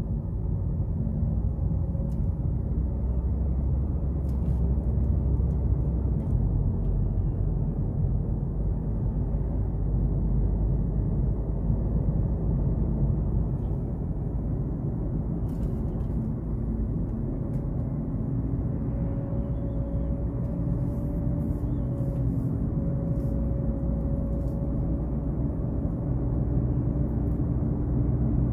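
Steady low road and engine rumble heard inside a moving car's cabin, with a faint hum that comes and goes in the second half.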